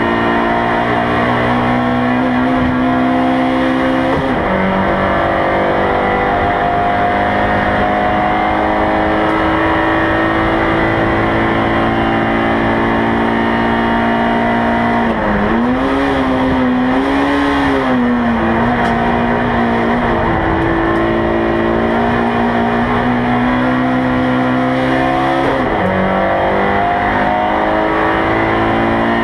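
Race car engine running at steady high revs, heard from inside the cabin. The pitch dips briefly about four seconds in and again near the end, and falls and rises in a wavering sweep around the middle.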